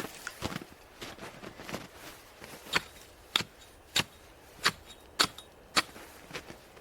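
Six sharp, evenly spaced knocks about half a second apart, after a few softer crunching sounds in snow, typical of something being struck repeatedly, such as hammering at a stake or ice.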